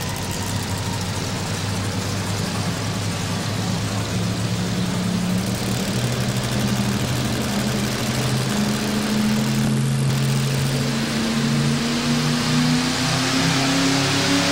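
Modified 4x4 pulling truck's 429 Ford V8 running hard under the heavy load of a pull. The engine note is steady and creeps up in pitch and loudness as the run goes on.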